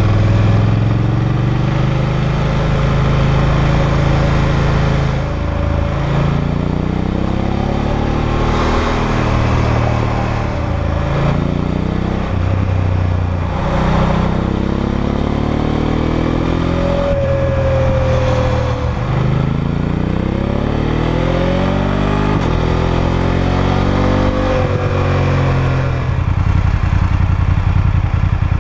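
BMW F850GS's 853 cc parallel-twin engine through its stock exhaust, accelerating and shifting through the gears with a quickshifter. The pitch climbs in repeated sweeps with short breaks at each shift and drops back between pulls, then settles into a steadier low note near the end. Revs are held under 6,500 rpm because the engine is still being run in.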